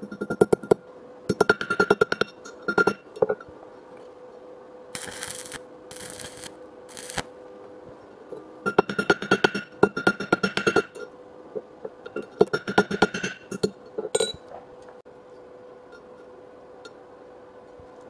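Stick welding: a steel washer being tack-welded to a steel plate, heard as several bursts of rapid crackling and ticking and three short hissing spells, over a steady faint hum.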